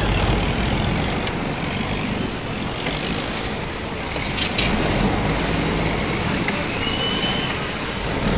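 River boat engine running steadily under way, with water rushing along the hull. A couple of short knocks come midway and a brief high whistle tone about seven seconds in.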